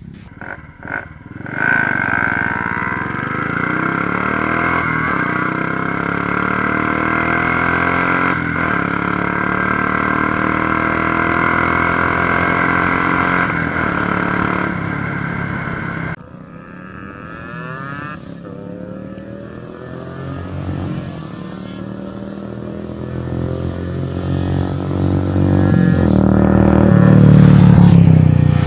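Royal Enfield Bullet 350's single-cylinder four-stroke engine running steadily at speed, heard from on the bike. After a sudden drop at about 16 s, a motorcycle approaches and grows steadily louder toward the end.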